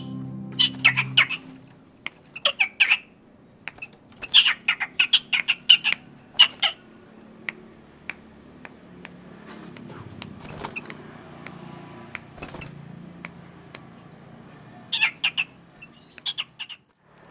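Bird-like chirping: quick runs of short, high squeaky notes in several bursts with pauses between, the longest a few seconds long near the start, another near the end, and a few faint clicks in between.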